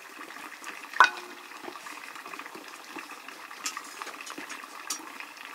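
Metal utensils knocking against metal cookware, with one sharp clank about a second in that rings briefly, then a few lighter clinks over a low steady hiss.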